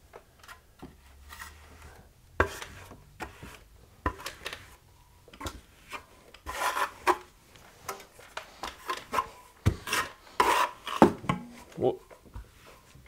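Steel drywall finishing trowel scraping and spreading joint compound across the wall in short, irregular strokes, with a few sharp clicks of metal, while skimming a coat of mud over a crack repair.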